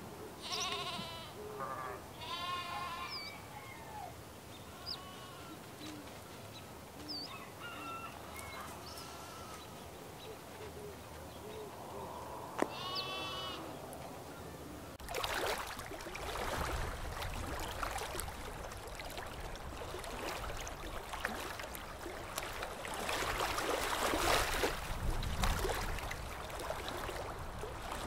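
Forest ambience: a few bleating animal calls in the first few seconds and again about 13 seconds in, with short high bird chirps between them. From about 15 seconds a rushing noise swells and fades in gusts.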